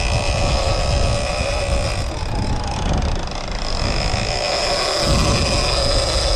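Shimano Tiagra lever-drag game reel's drag whining steadily as a hooked striped marlin pulls line off it, over low wind and sea noise.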